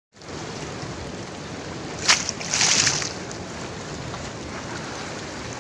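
Fast, swollen floodwater of the Gandak river rushing past in a steady wash of noise, with two brief louder surges of noise about two seconds in.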